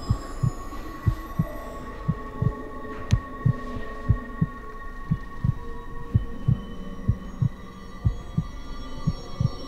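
Heartbeat sound effect: low thumps in pairs, about one pair a second, over a steady droning hum, with a single sharp click about three seconds in.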